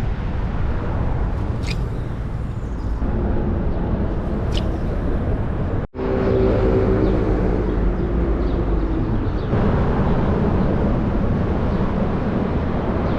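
Steady, loud roar of freeway traffic passing overhead on the I-5, with a deep rumble of cars and trucks. It breaks off for an instant about six seconds in, then a passing vehicle adds a steady humming drone for a few seconds.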